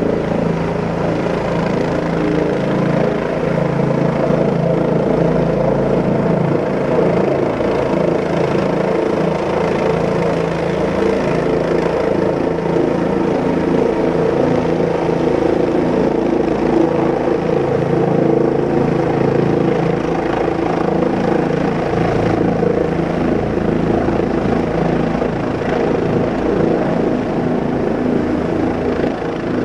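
Steady whirring hum of rotors in flight, several steady tones held evenly throughout with no change in pitch.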